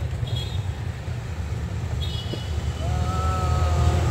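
Steady low rumble of street traffic, with a couple of short high beeps and a steady tone held for about a second near the end.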